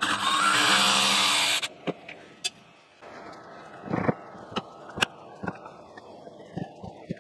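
A cordless Dremel rotary tool fitted with a socket runs for about a second and a half, spinning the fastener at the hub of an electric motor's cooling fan. Then come light metal clicks and knocks as the fan hub and tools are handled.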